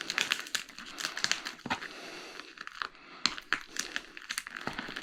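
Shipping packaging being handled and unwrapped, crinkling and rustling with irregular sharp crackles.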